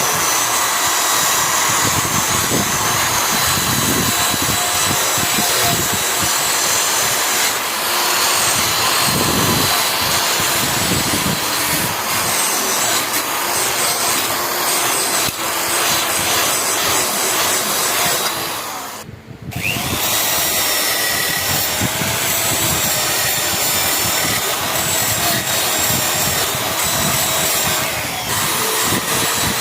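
An electric power tool's motor running steadily with a high whine, abrading the rusty steel of a knife blade. About two-thirds of the way through it cuts out for about a second, then spins back up and carries on.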